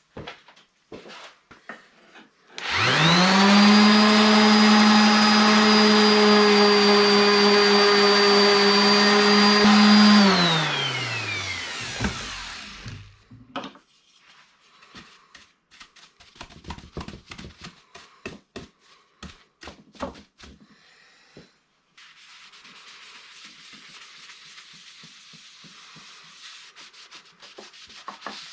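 A small electric power tool's motor starts up with a quick rise in pitch, runs steadily for about eight seconds, then winds down with a falling whine as it coasts to a stop. Light handling clicks follow, and later a faint steady rubbing starts.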